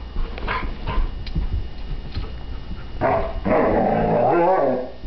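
Alaskan Malamute puppy rooing: a drawn-out, wavering 'woo' about two seconds long starting three seconds in, falling in pitch at the end, a frustrated sound at a bowling ball she cannot pick up. Short scuffs and knocks come before it.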